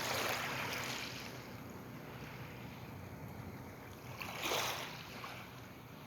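Small waves washing onto the beach, two louder swells of hiss in the first second and about four and a half seconds in, over a faint steady low hum.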